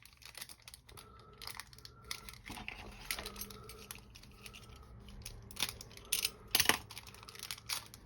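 Small countersunk screws being picked out of a parts bag by hand, with rapid light clicks and rattles and two louder clicks past the middle.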